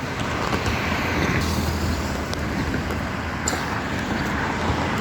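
Road traffic noise: a steady rush of vehicles with a low engine hum underneath.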